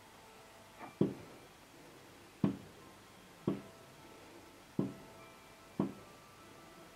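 Aerial firework shells bursting: five sharp bangs about one to one and a half seconds apart, each trailing off in an echo.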